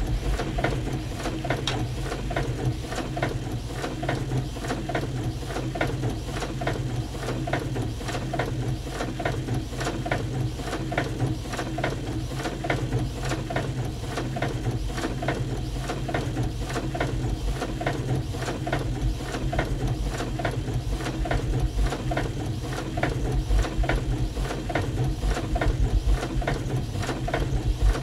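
Printing-press machinery sounds arranged as repetitive experimental music: a rapid, dense mechanical clatter of clicks over a steady low hum, growing a little louder near the end.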